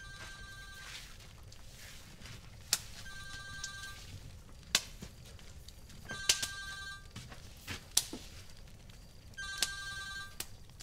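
Mobile phone ringtone ringing four times, each ring about a second long and about three seconds apart. A few short sharp knocks fall between the rings.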